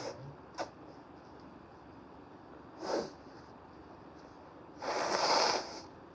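A person blowing a congested, snotty nose, probably into a tissue: a short blow about three seconds in, then a longer, louder one lasting nearly a second near the end.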